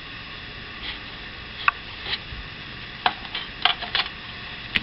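Trading cards and booster-pack packaging being handled: scattered light clicks and crinkly rustles, coming more often near the end.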